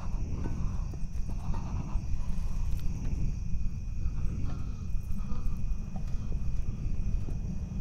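Crickets chirping steadily in two high, even bands, over a constant low rumble.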